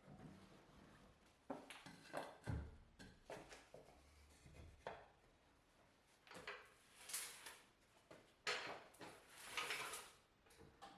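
Faint, scattered clinks and scrapes of hand tools and metal parts being handled, a dozen or so short sounds at uneven intervals.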